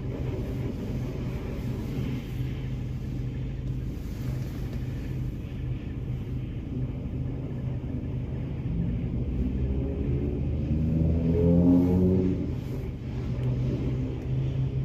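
A car engine idles steadily, heard from inside the cabin. From about nine seconds in, another vehicle's engine nearby rises in pitch and grows louder, peaking near twelve seconds, then fades.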